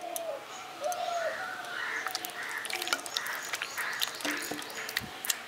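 Crows cawing several times, mostly in the first second or so, over wet squelching and ticking from hands mashing bael pulp with water.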